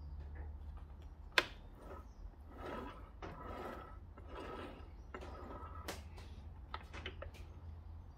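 Gear shafts and shift parts of a 1990 Kawasaki ZZR1100 gearbox, cases split open, being turned by hand: gear teeth and selector parts click and rattle softly in pulses about every three quarters of a second. There is a sharper single click about a second and a half in, and several more near the end.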